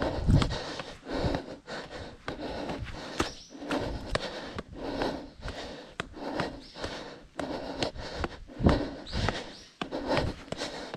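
A trail runner's hard breathing close to a chest-mounted camera, with footsteps and clothing rub, on a steep climb. The breaths and steps come about once a second in an uneven rhythm.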